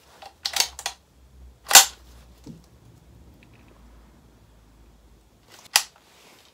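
Gas airsoft L85A2 rifle: a few separate sharp clacks, a short cluster about half a second in, the loudest just under two seconds in, and another near the end.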